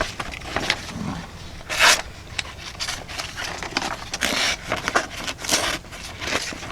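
A knife blade drawn across a leather strop in a run of short, uneven scraping strokes.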